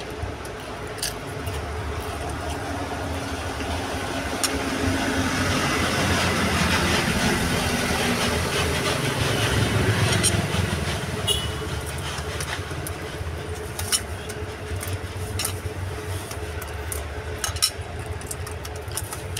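Street traffic going past: a vehicle's engine and tyre noise swell up to a peak about ten seconds in and fade away, over a steady low rumble. A few short, sharp clicks are heard along the way.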